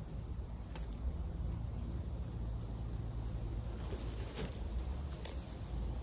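Faint rustling and a few small clicks as freshly picked chanterelle mushrooms are handled and sorted in the grass, over a steady low rumble.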